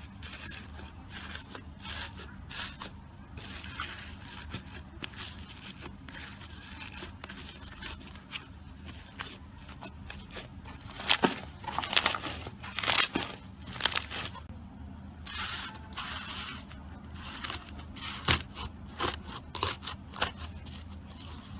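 Fingers pressing, poking and tearing slime, making crisp crackling and popping sounds with a scraping quality. The crackles come in loose clusters, louder around the middle and once more near the end.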